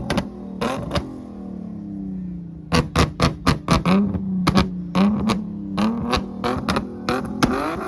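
Tuned car engine being revved, with a rapid string of sharp exhaust pops and bangs from a flame-map tune. The revs drop off over the first couple of seconds, then it is blipped again and the crackling comes thick and fast.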